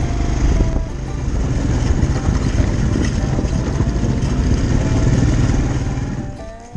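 Quad bike engine running steadily while riding along a dirt track at low speed. The sound fades away about six seconds in.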